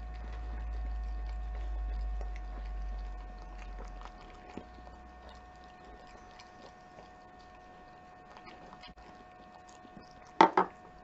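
A Keeshond licking and chewing food off a metal spoon: faint small wet clicks and smacks, over a low hum that drops away after about four seconds. Near the end, two sharp knocks a fraction of a second apart.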